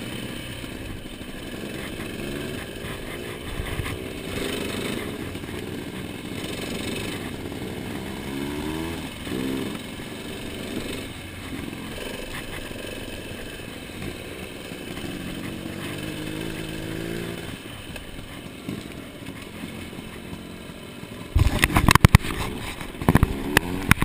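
Off-road motorcycle engine running under the rider on a gravel track, its pitch rising and falling several times with the throttle. From about 21 seconds in, loud irregular knocks and rubbing as the camera is handled and covered.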